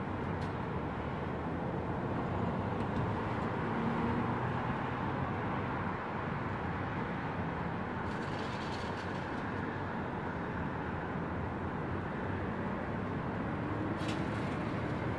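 Distant thunder rumbling steadily in a long, low roll, with no sharp crack.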